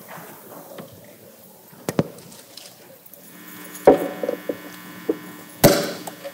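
A few scattered knocks and bumps, the loudest about four seconds in and again near the end, over a faint low steady hum that sets in about halfway through.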